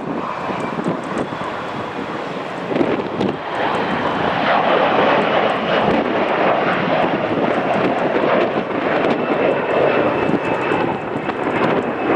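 Jet airliner engines: a steady rushing roar that grows louder about three to four seconds in, with a faint high turbine whine over it in the second half.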